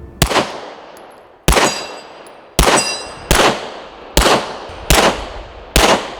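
Seven handgun shots fired one at a time at an uneven pace, roughly one a second, each with a short ringing, echoing tail.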